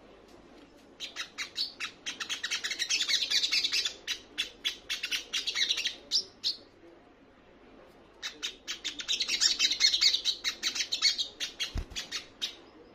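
Olive-backed sunbird calling: two bouts of fast, high chirping notes, each several seconds long, with a short pause between.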